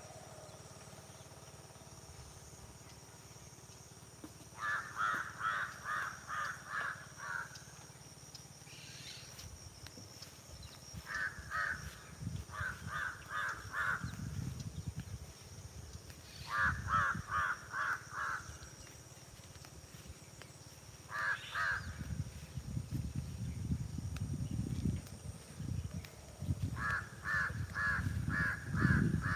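Crows cawing in quick runs of several calls, about four a second, repeated every few seconds over a steady high-pitched insect drone. Low rumbling comes in from about two-thirds of the way through.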